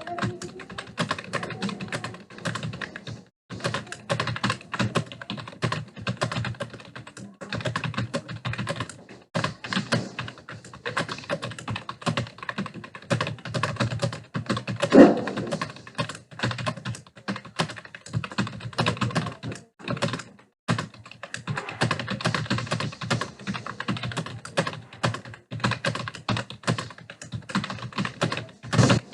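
Fast, continuous typing on a computer keyboard: rapid key clicks with brief pauses, and one louder knock about halfway through.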